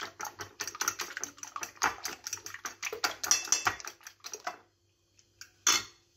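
Eggs being beaten by hand with a metal utensil in a glass bowl: quick clicking of the utensil against the bowl, several strokes a second, stopping about four and a half seconds in, followed by a single sharper knock near the end.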